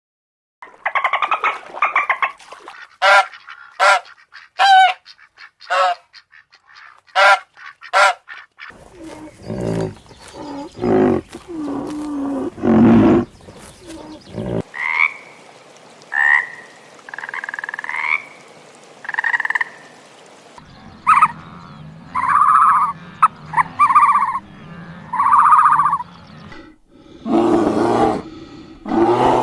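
A string of short animal calls from several different animals in turn: a run of quick high-pitched calls, then lower calls, then chirping calls, then mid-pitched calls, each group lasting a few seconds.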